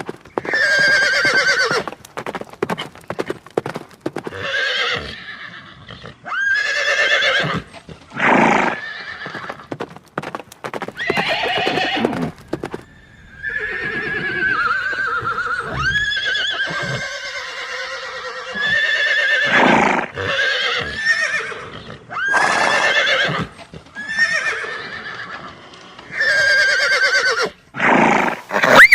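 Horses whinnying again and again, each call a shaky, wavering cry about a second long, with hooves clip-clopping in short runs between some calls.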